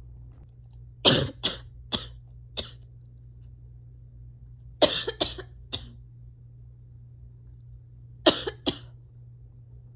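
A person coughing in three short fits: four quick coughs about a second in, three more around the middle, and two near the end.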